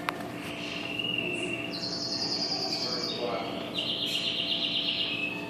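Two high, buzzy trills, each about a second long, the second lower in pitch than the first, over a steady machinery hum.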